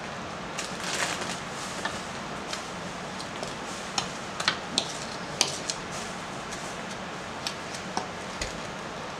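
A spoon stirring wet pumpkin-cake batter in a mixing bowl, with irregular clicks and knocks of the spoon against the bowl over a steady background hiss.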